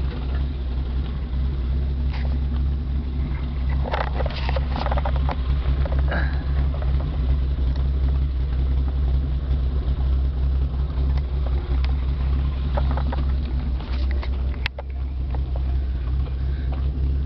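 1955 Willys pickup's Super Hurricane straight-six engine idling steadily and quietly, with a few light clicks and one sharp tick about fifteen seconds in.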